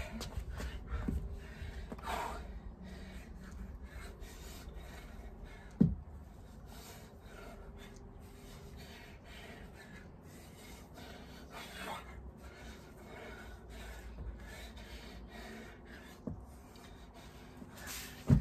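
Heavy, rasping breathing of a man exerting himself in a dumbbell workout. Two sharp thumps, one about six seconds in and one at the end, fit dumbbells or feet landing on the floor.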